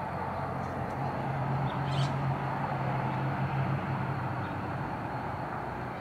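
A steady low hum runs under a haze of outdoor noise, and a single short, high bird chirp comes about two seconds in.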